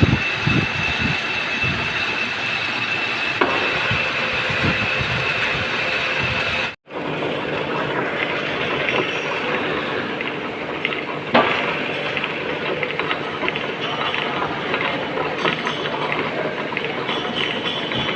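Metal lathe running while turning a shaft: a steady mechanical din with a high whine in the first few seconds, then continuing with scattered clicks and one sharp knock after a brief break.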